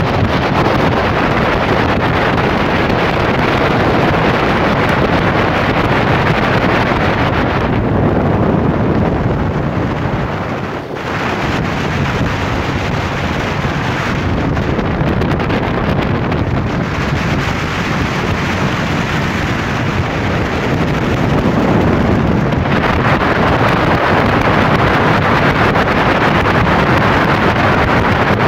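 Sportster speedboat running fast: a loud, steady rush of the motor and water, with wind buffeting the microphone. The hiss thins out for a few seconds twice where the shot changes.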